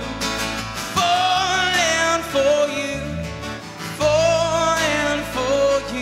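A pop-rock band song: a sung melody over guitar-led band backing, with two vocal phrases starting about one and four seconds in.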